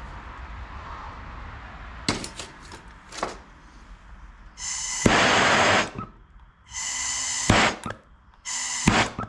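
A few sharp knocks, then a power tool run in three short bursts of about a second each.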